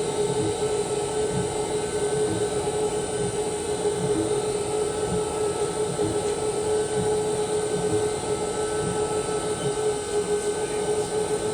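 Haas VF-3 vertical machining center running, its spindle turning at a constant speed with a steady, even whine over a low mechanical hum.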